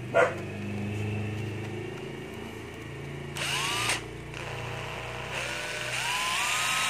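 Cordless drill/driver motor run on its trigger. A sharp click comes near the start, then a short run about halfway whose whine rises as the motor speeds up, and a second, longer run that climbs in pitch in steps toward the end.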